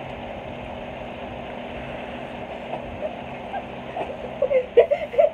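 Electric fan running steadily, with faint voices near the end.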